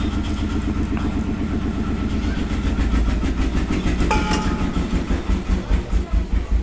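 A small engine running steadily in the background, with a fast low pulse, and a brief squeak about four seconds in.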